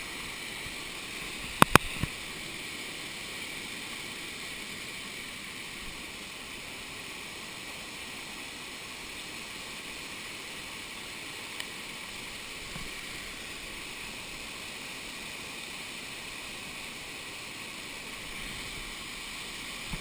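Waterfall cascading over rock: a steady rushing of water, with two sharp knocks about two seconds in.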